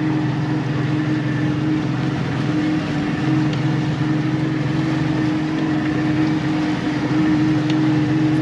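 Boat engine running steadily, a constant even drone that does not rise or fall.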